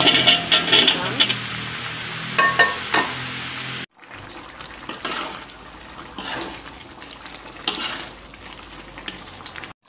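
Cubed potatoes tumbling from a bowl into an aluminium wok of chicken pieces, clattering in a quick run of knocks over a steady hiss. After a sudden cut, the much quieter rendang simmering in coconut milk, with a spoon stirring it now and then.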